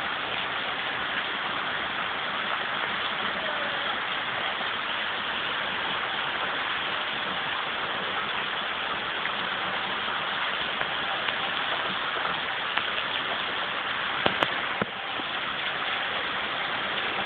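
Large hailstones and heavy rain falling steadily: a constant hiss, dotted with sharper clicks of stones striking the ground, with a few louder knocks about fourteen seconds in.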